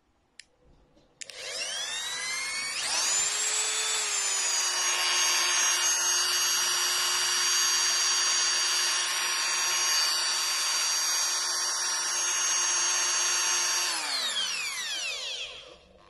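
Dremel 3000 rotary multi-tool switched on about a second in, its motor whine rising in pitch as it spins up. It runs at a steady high speed for about ten seconds, then is switched off near the end and the whine falls away as it spins down.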